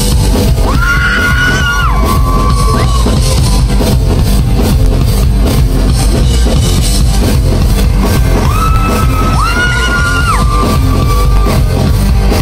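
Loud live rock band playing in a hall, with electric guitar in the mix. A high, held note rises out of the band twice, near the start and again about eight seconds in.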